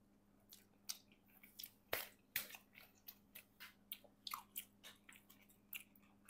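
Faint, close-up chewing and biting of thick-crust pizza: a string of short, wet mouth clicks and smacks, with a few sharper crunches.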